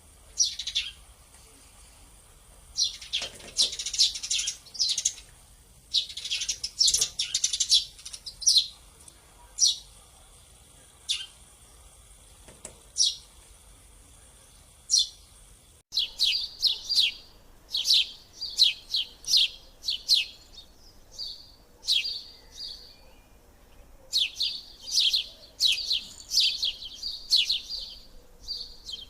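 Sparrows chirping: short, high chirps, scattered at first, then after an abrupt cut about halfway through, busier runs of quick chirps in rapid succession.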